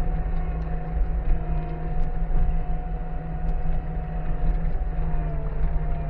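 Skid steer engine running steadily, heard from inside the cab, with a steady whine that drops a little in pitch near the end as the machine works its grapple into a pile of scrap cages.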